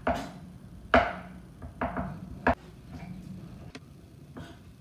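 Chef's knife tip pressed down through rolled gingerbread dough, striking the marble board beneath: four sharp taps about a second apart, then a few lighter ones near the end.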